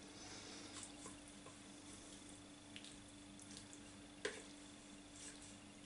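Faint squelching of cooked red peppers and onions pressed with a spoon in a plastic colander, the cooking liquid draining out, with one light knock about four seconds in.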